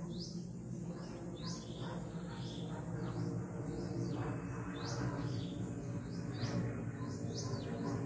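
Birds chirping: short, high notes that quickly rise and fall, a few each second, over a low steady hum.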